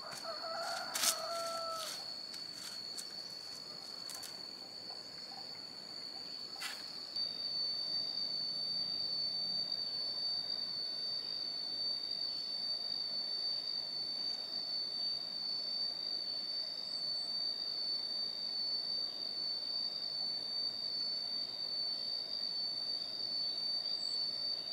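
Steady high-pitched insect drone, which grows louder about seven seconds in. About a second in there is a brief animal call, with a few light clicks near the start.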